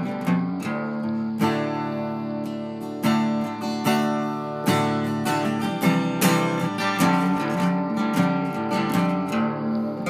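Acoustic guitar music, with picked notes and strummed chords.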